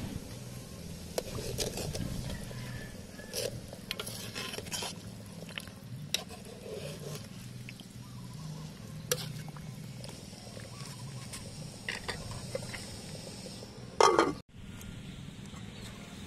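Metal ladle stirring soup in a stainless steel stockpot, scraping and knocking against the pot now and then. Near the end there is one louder clatter, which cuts off suddenly.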